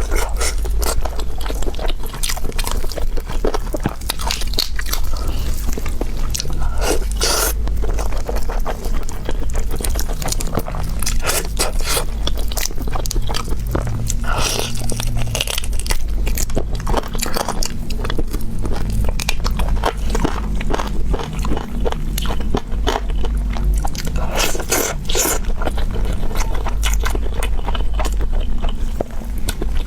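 Close-miked biting and chewing of an Orleans-style roast chicken leg: a continuous run of irregular bites, chews and mouth clicks over a steady low hum.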